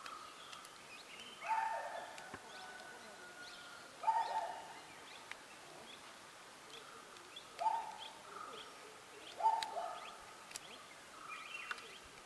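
A bird calling repeatedly in the background: four short, falling calls a couple of seconds apart, with softer calls between them. A few faint sharp clicks can also be heard.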